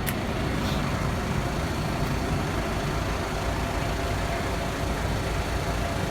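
IVECO Stralis 560's Cursor 13 inline-six diesel idling steadily, with a brief click just after the start.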